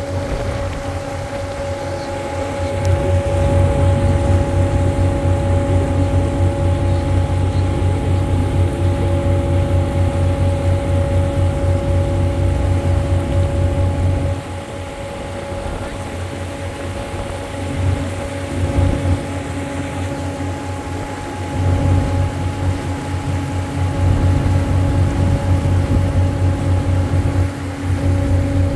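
Cruise boat's engine running: a low, pulsing rumble with a steady hum over it. It eases off for several seconds midway, then picks up again.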